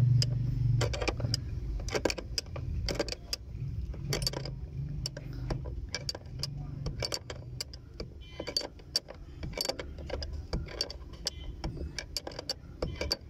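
Irregular metal clicks and clinks, several a second, of a spanner working the 14 mm lock nut on a Suzuki Mehran's handbrake cable adjuster while pliers hold the threaded rod. The nut is being loosened to take up slack in a loose handbrake cable. A low steady hum runs underneath.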